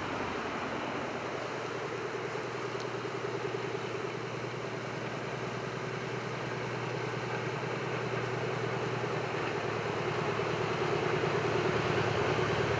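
Diesel locomotive of a narrow-gauge train approaching unseen, its engine running with a steady pitch and growing gradually louder over the rush of a mountain stream.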